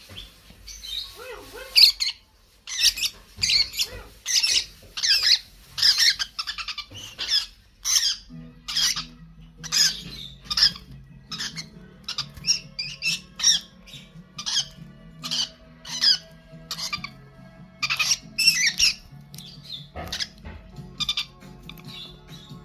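Young birds giving short, harsh squawks over and over, about one or two a second. Background music with steady low notes comes in about eight seconds in and runs under the calls.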